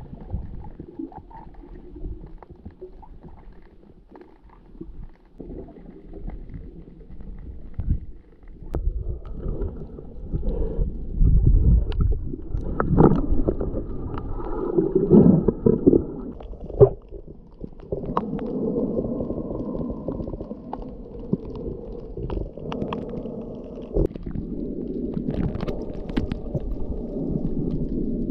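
Muffled underwater noise picked up by a camera held underwater: low rumbling and gurgling water movement, louder after about nine seconds, with scattered short clicks.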